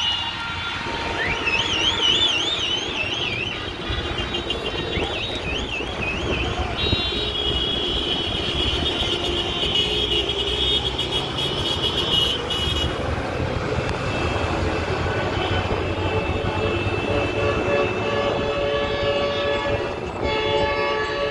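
Many car horns sounding together across a city street, several held long and steady, over the noise of passing traffic. High warbling trills ride over the horns in the first few seconds.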